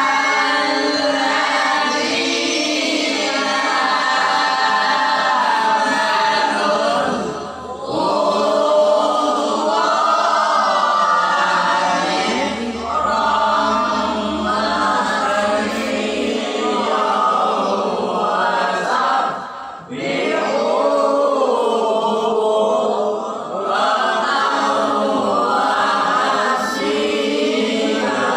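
Melodic Quran recitation (tilawah): a voice chanting long, ornamented phrases with wavering pitch, pausing briefly for breath twice.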